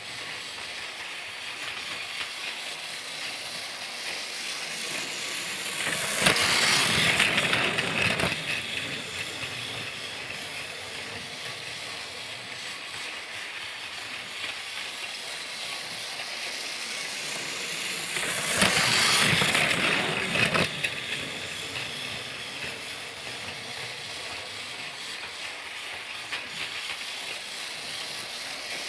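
Thomas the Tank Engine toy train running with a steady mechanical whir. It grows louder twice, about twelve seconds apart.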